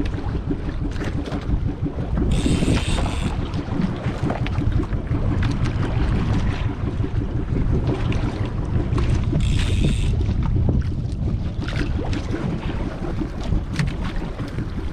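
Wind buffeting the microphone over choppy sea on an open boat, a steady dense rumble. Twice there is a brief higher hiss, about two and a half seconds in and again near ten seconds.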